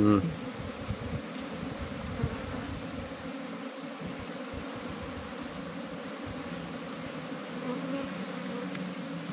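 Honeybees from an opened top-bar hive buzzing as a steady, continuous hum.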